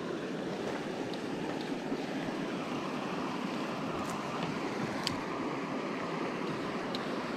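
Steady rush of a shallow, rocky river flowing over cobbles, with a few faint clicks.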